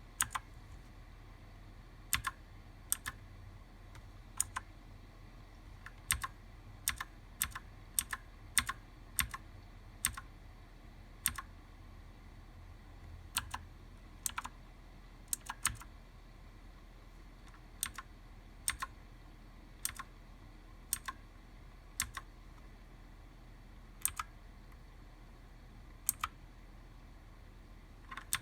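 Redragon Visnu mechanical keyboard with blue switches: individual keys pressed at an uneven, unhurried pace, each press giving a sharp click, often heard as a quick double click of press and release.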